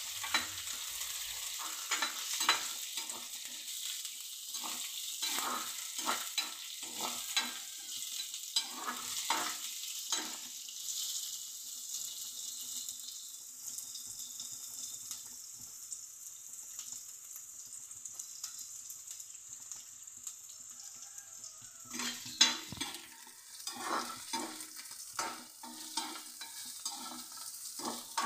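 Onion, garlic, green chillies and curry leaves sizzling in hot oil in a non-stick pan, with a spatula scraping and tapping the pan as they are stirred. The strokes come roughly every half second for about ten seconds. They stop for about ten seconds while only the sizzle goes on, then start again with a sharp knock on the pan.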